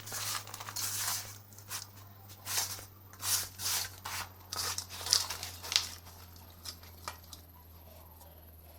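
Dry clay crumbling and crunching as it is crushed, in a run of crisp crackles that thin out to a few scattered ticks after about six seconds.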